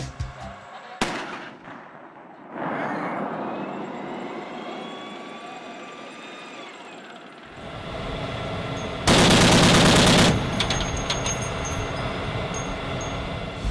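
Gunfire: a single sharp report about a second in, then a loud sustained burst lasting about a second near the nine-second mark.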